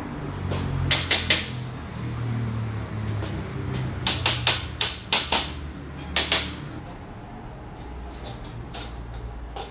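Sharp metal clinks and taps from bolting together a galvanised slotted-angle steel rack, in small clusters of two or three, over a low steady hum.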